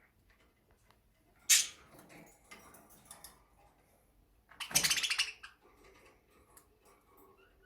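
Budgerigars moving about in their cage: a sudden noisy flurry about a second and a half in and a longer rapid one about five seconds in, with small scattered clicks and taps.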